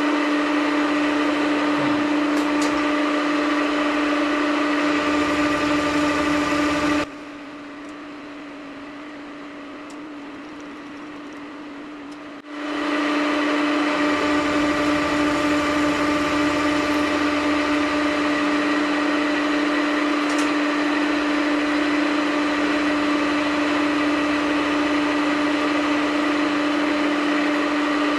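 Vertical milling machine running with a steady whine over machining noise as the cutter mills a steel workpiece. About seven seconds in the sound drops away sharply for about five seconds, then comes back, rising over about a second.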